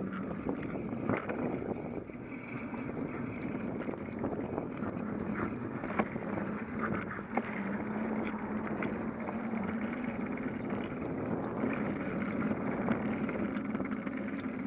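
Bicycle ridden along a concrete sidewalk, heard from a camera mounted on the bike: steady rolling and wind noise with a low hum, and scattered clicks and rattles.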